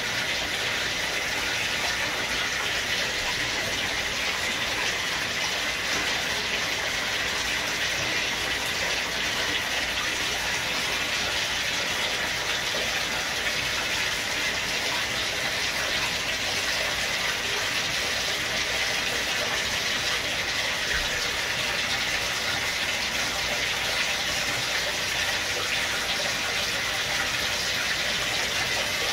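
Water running steadily from a bathtub tap into shallow water in the tub.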